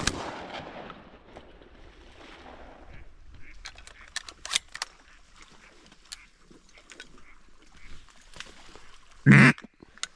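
Ducks calling over a marsh pond, with a shotgun shot at the very start whose echo dies away over about a second. Scattered short calls follow, and one loud short call comes near the end.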